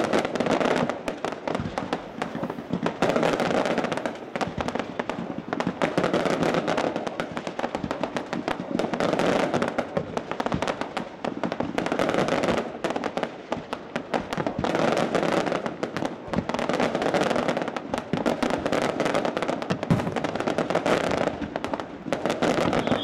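Fireworks display going off without a break: rapid bangs and crackling from bursting aerial shells and fountains, many reports a second.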